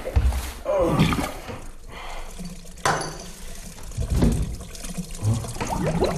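Bathwater sloshing and gurgling in a bathtub as a person shifts in it, with irregular low splashes.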